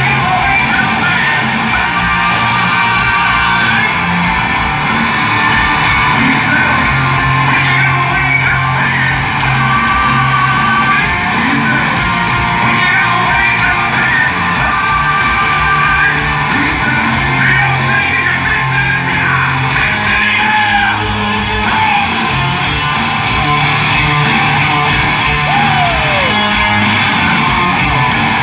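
Hard rock band playing loud, with distorted electric guitars, sustained bass notes and yelled vocals, echoing in a large hall.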